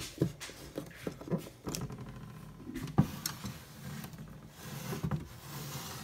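Toy Miele washing machine's small electric motor humming steadily as it turns the drum, with irregular knocks and rattles on top, the sharpest about three seconds in.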